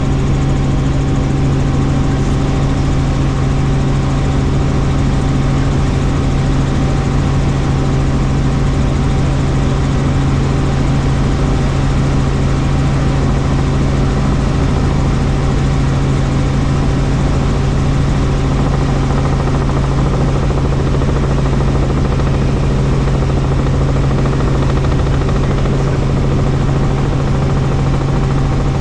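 Helicopter in flight: a loud, steady engine and rotor drone with a constant low hum and a fainter steady whine above it.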